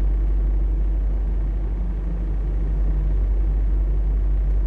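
Steady low rumble inside a semi-truck cab from the truck's idling engine.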